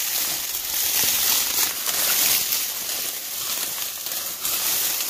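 Dry cattail and grass stalks rustling and crackling as people move through them and handle the moose, brushing close to the microphone.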